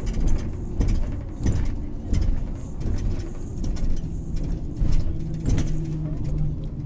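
Nova Bus LFS articulated bus running with a low rumble and repeated knocks and rattles, and a faint high-pitched screech that comes and goes, which is the fault the bus is known for.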